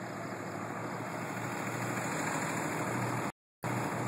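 Dodge pickup's inline-six Cummins turbo-diesel idling steadily. The sound drops out completely for a moment about three seconds in.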